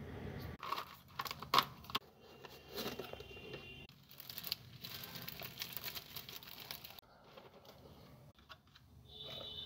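Craft supplies being handled: a few sharp clicks and taps in the first two seconds, then plastic sticker sheets and packaging crinkling and rustling, with quieter clicks of a clear plastic container near the end.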